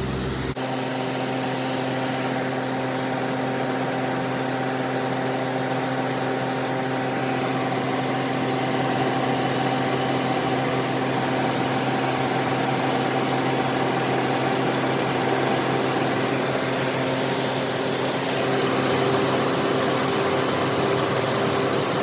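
Combine engine and unloading auger running steadily as dry shelled corn pours into a grain wagon, a constant machine hum over a rushing hiss of grain.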